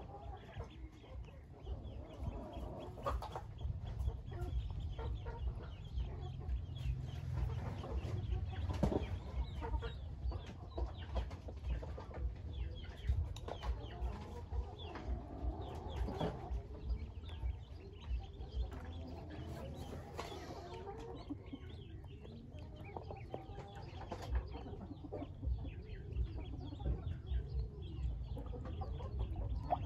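A flock of Pekin ducklings peeping constantly, many short high calls overlapping.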